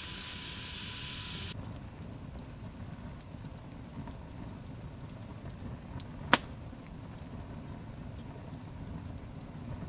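Log campfire burning with a low rumble and sparse crackles, and one sharp pop about six seconds in. A steady hiss at the start cuts off after about a second and a half.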